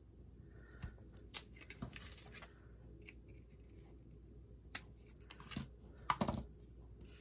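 Quiet paper handling: light rustles and a few sharp little taps and clicks as punched cardstock border strips are picked up, peeled and pressed onto cardstock squares. Near the end there is a brief cluster of sharper clicks as a pair of scissors is picked up.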